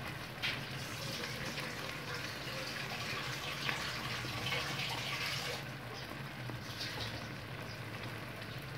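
Tomato sauce with ground pork and sliced hot dogs simmering in a pan, a steady sizzling and bubbling with crackles, over a steady low hum. The hiss thins a little about halfway through.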